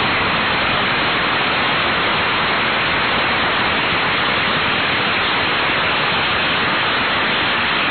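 Studio audience applauding steadily as a character exits, heard through an old narrow-band radio recording. The applause fades just before the dialogue resumes.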